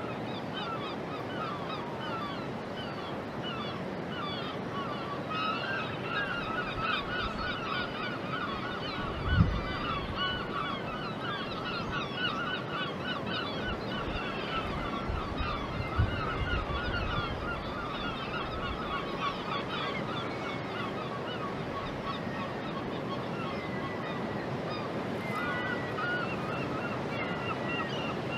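A flock of birds calling in a dense, continuous chatter of short honking calls, busiest through the middle, over steady outdoor background noise. Two dull low thumps stand out, the first about a third of the way in and the second a few seconds later.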